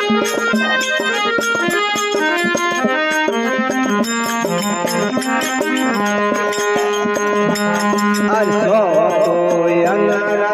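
Devotional bhajan music without lyrics: held melody notes over quick, steady percussion strokes. About eight seconds in, a strongly wavering melody line joins.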